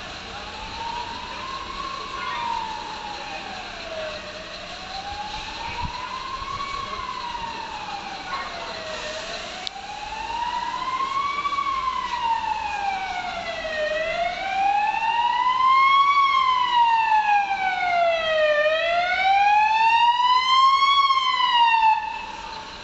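An emergency vehicle siren wailing, slowly rising and falling in pitch about five times and growing louder. It cuts off suddenly near the end.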